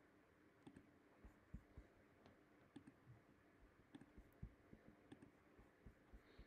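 Faint computer mouse clicks, a dozen or so at irregular intervals, over near-silent room tone.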